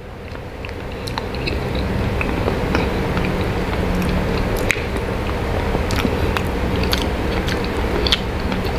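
Close-miked chewing and mouth sounds of a person eating soft mashed potato topped with beef chili, with scattered small wet clicks and smacks. A steady low hum grows louder over the first couple of seconds and stays under it.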